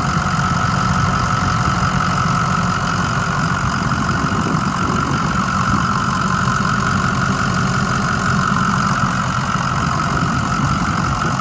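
Ford 6.0-litre Power Stroke V8 turbo diesel idling steadily, fully warmed up after running over 40 minutes. A low rumble runs under a steady high whine, and the seller says the motor sounds great.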